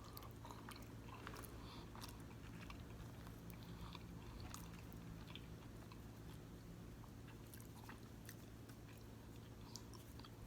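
Quiet chewing and wet mouth sounds of someone eating egusi soup and fufu, with scattered small smacks and clicks.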